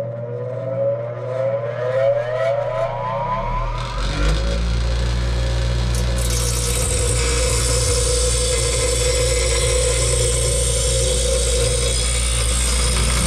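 Bench grinder motor spinning up with a rising whine, then running at a steady hum from about four seconds in. From about six seconds in, a steel plate is held against the spinning wheel, adding a steady grinding hiss as the plate is shaped.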